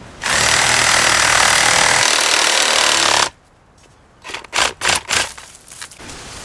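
Cordless reciprocating saw cutting through a bamboo culm, running steadily for about three seconds and then cutting off suddenly. A few short, loud bursts follow about a second later.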